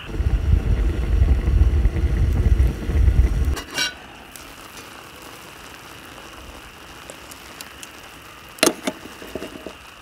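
A few seconds of loud low rumbling noise, cut off by a sharp click. Then a wood fire in a small stainless steel folding stove crackles faintly with scattered small ticks, and about three-quarters of the way through a metal clank sounds as the cooking pot is lifted off the stove.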